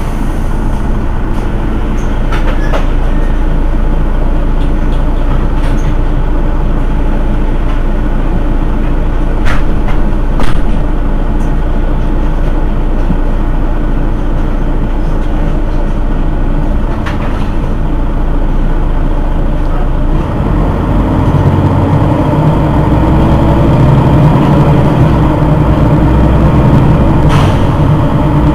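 Mercedes-Benz Citaro city bus's rear-mounted diesel engine idling at a stop, a steady rumble with a few sharp clicks. About twenty seconds in the low rumble grows heavier and a tone slowly rises in pitch.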